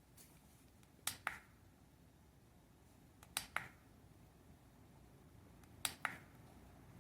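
Three pairs of sharp clicks, the two in each pair about a fifth of a second apart and the pairs about two and a half seconds apart, over faint room noise.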